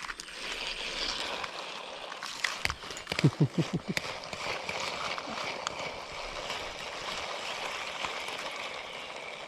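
Shallow creek water running and gurgling steadily. About three seconds in there is a brief rapid flurry of low sweeping sounds.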